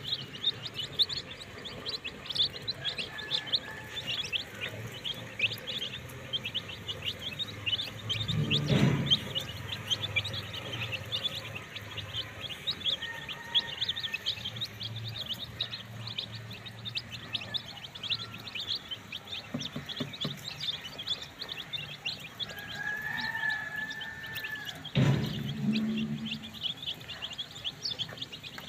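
A flock of young chicks peeping continuously: a dense chorus of short, high chirps. A couple of dull knocks stand out, about a third of the way in and near the end.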